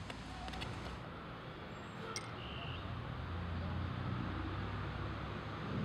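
Steady low outdoor background rumble with a faint hum, growing a little louder in the second half, and a faint click about two seconds in.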